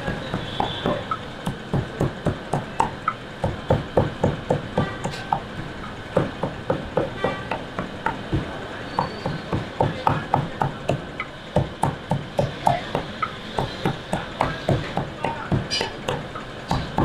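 Heavy steel cleaver chopping raw meat on a thick round wooden block, striking about three times a second with two short pauses.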